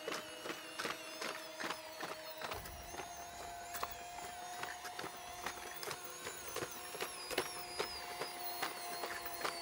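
Boston Dynamics' original Spot quadruped robot walking: a steady high whine from its hydraulic drive, with sharp clicks from its stepping legs about two or three times a second. About two and a half seconds in, the whine steps up slightly in pitch and a low rumble joins it.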